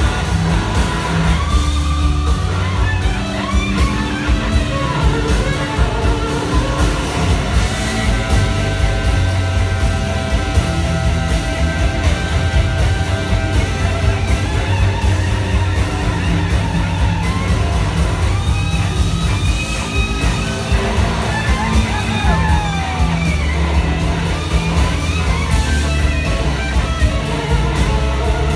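Live blues-rock band playing, with electric guitars over bass and a steady drum beat. Lead guitar lines hold long notes and, about two-thirds of the way in, play gliding, bending notes.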